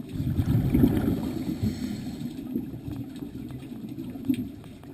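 Muffled underwater rumble of scuba exhaust bubbles, heard through a GoPro's waterproof housing. It surges at the start and is loudest for the first second or so, then eases off.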